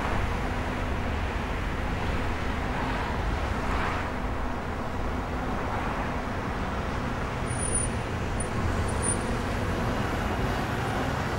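Urban road traffic: a steady rumble of vehicles, swelling briefly about four seconds in.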